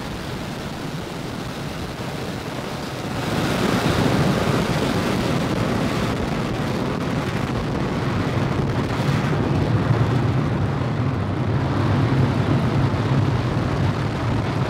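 Falcon 9 first stage's nine Merlin 1D engines at full power during ascent: a loud, steady rumbling noise that grows louder about three and a half seconds in.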